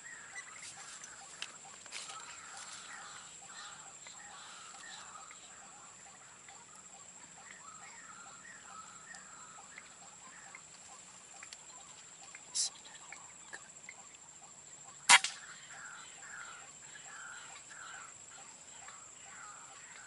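One sharp crack of an air rifle shot fired at a white-breasted waterhen about fifteen seconds in. Behind it, a steady high insect whine and soft bird chirping.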